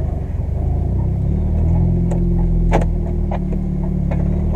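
Car engine running at low revs while pulling away, heard from inside the cabin, its pitch shifting slightly as it moves off. A few light knocks come through in the second half.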